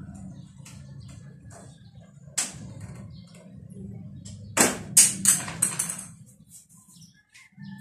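Knocks and clatter of parts being handled during work on a motor scooter: a single knock about two and a half seconds in, then a loud cluster of clattering knocks about five seconds in, over a steady low hum.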